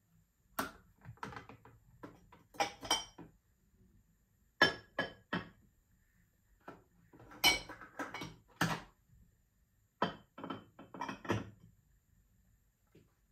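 Glass food-storage containers and dishes clinking and knocking as they are lifted from a dish rack and stacked on a kitchen counter: irregular sharp clinks and taps, often two or three close together.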